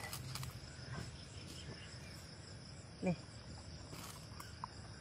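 Steady high-pitched insect chirring in the background, with a brief falling squeak about three seconds in.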